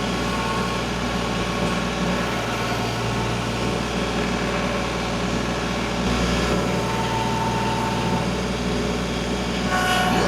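Portable bandsaw sawmill's gas engine running steadily at a constant speed, with a faint higher whine coming and going over it.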